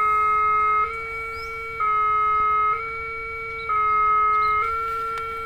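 Railway level-crossing warning alarm sounding: an electronic two-tone alarm that switches back and forth between two slightly different pitches, one louder than the other, about once a second. It is the warning that a train is approaching the crossing.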